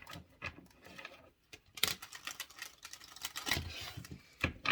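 A deck of tarot cards being shuffled and handled by hand: quick papery clicks and flicks, thickening into rapid runs about two seconds in and again about three and a half seconds in.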